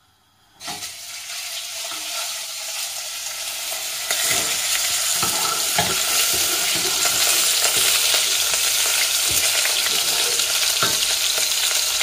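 Diced beef sizzling in hot oil in a stainless steel pot while it is stirred with a wooden spoon, with occasional light knocks of the spoon against the pot; the meat is being seared to brown it. The sizzle starts about half a second in and grows louder about four seconds in.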